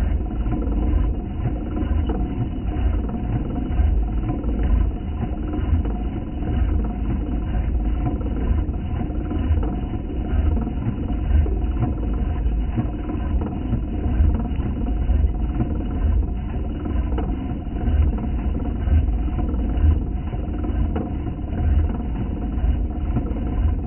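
Milling machine cutting steel, its sound slowed far down into a deep, steady rumble with a faint hum of a few steady tones above it.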